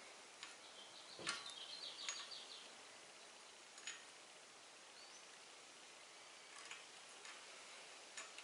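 Near silence, with a few faint scattered clicks and, about a second in, a short run of quick light ticks.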